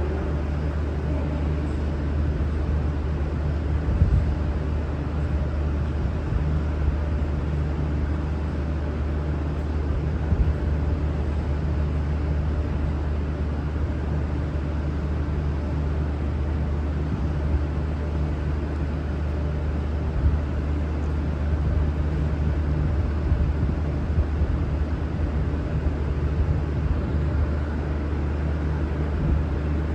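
V/Line VLocity diesel railcar engines idling at the platform: a steady low hum, with an occasional faint knock.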